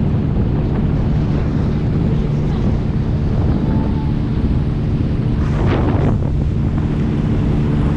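Wind buffeting the microphone over the steady drone of a bay boat's outboard motor running at speed, with water rushing along the hull. A brief louder rush comes about five and a half seconds in.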